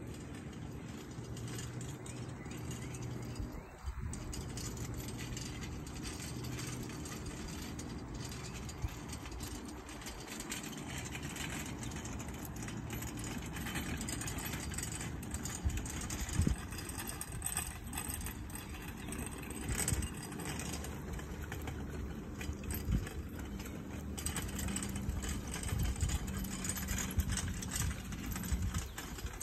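Horse-drawn four-wheeled carriage pulled by a pair of ponies, its wheels rolling over grass with harness and fittings jingling and rattling, and scattered sharp clicks that grow more frequent as it comes closer.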